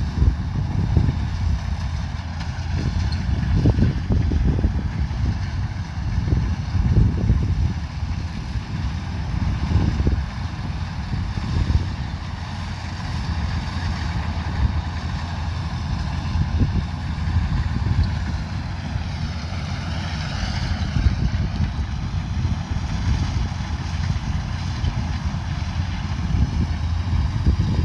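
Kubota DC105X combine harvester running steadily under load, a heavy low rumble with a faint steady whine above it. About twenty seconds in the pitch shifts briefly, rising and falling.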